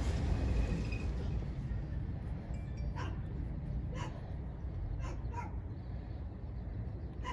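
A dog barking several times in short single barks about a second apart, over a steady low rumble.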